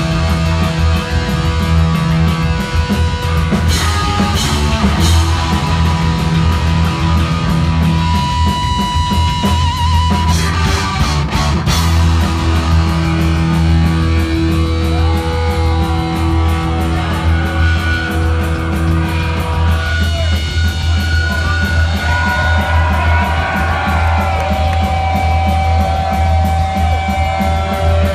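Heavy metal band playing live and loud: distorted electric guitar holds and bends lead notes over bass and a drum kit.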